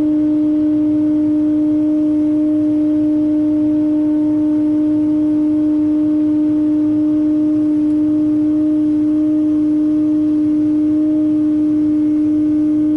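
Heavy machinery, most likely a wheeled excavator, running at a steady engine speed, making a loud, steady droning hum with a rumble underneath.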